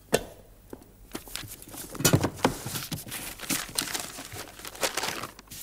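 Paper rustling and crinkling in irregular bursts as a folded letter is picked up and opened out on a desk, after a light knock at the very start.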